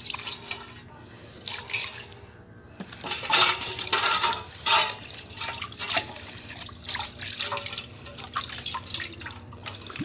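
Water splashing and pouring as brass utensils are rinsed in a brass pot after being scoured with ash, with a few sharp clinks of the metal vessels knocking together.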